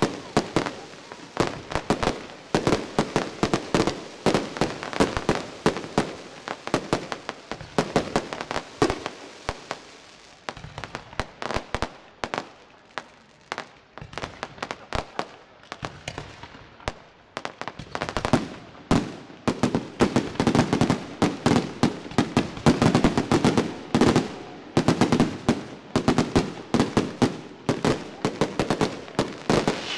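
Fireworks display: a dense, continuous barrage of sharp bangs and crackles. It thins out for a few seconds about a third of the way in, then picks up again, denser and louder, from about eighteen seconds on.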